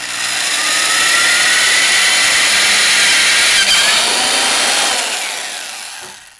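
Corded Black & Decker electric drill running a twist bit through a model rocket's paper body tube. The motor whine holds steady and loud, then winds down near the end.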